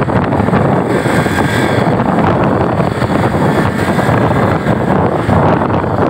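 Steady, loud wind noise buffeting the phone's microphone, a dense rushing without breaks.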